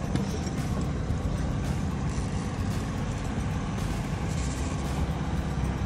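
Boat motor running steadily at trolling speed, a low rumble mixed with wind and water noise.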